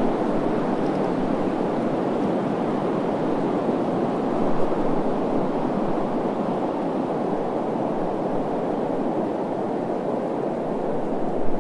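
Steady desert wind blowing, an even rushing noise with no gusts or breaks and most of its weight low in pitch.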